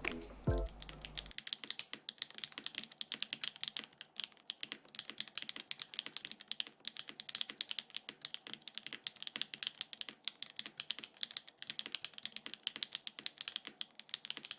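Fast, continuous typing on a Neo80 mechanical keyboard with Owlab Neon switches on an aluminium plate: a dense run of key clacks. The tail of background music fades out in the first second.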